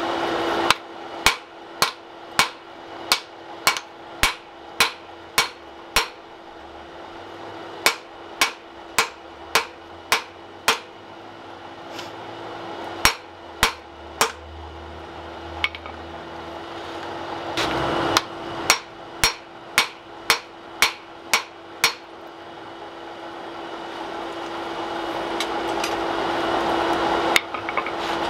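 Hand hammer striking the orange-hot steel of a forge-welded axe blank on an anvil, in runs of sharp blows coming nearly two a second, with pauses of a couple of seconds between runs and a lone blow near the end.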